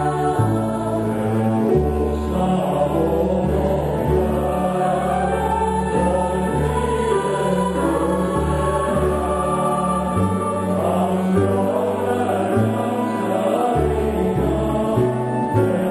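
Choir singing in harmony, accompanied by a double bass playing a moving line of low notes that changes pitch every half second to a second.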